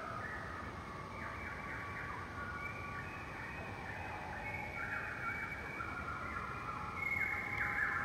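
A flock of birds chirping together: a dense chorus of many overlapping high calls, many of them quick falling notes, growing louder about seven seconds in.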